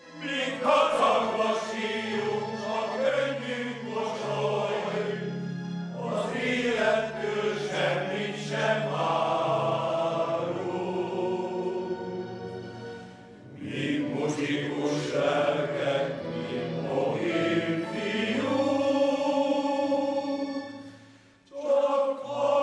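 A choir singing in long phrases, with short breaks between them about 6, 13 and 21 seconds in.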